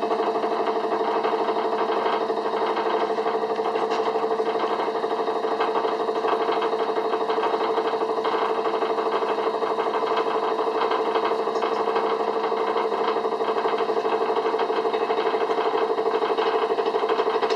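Motor-driven antique lathe running steadily, with a steady hum and a fast, even clatter.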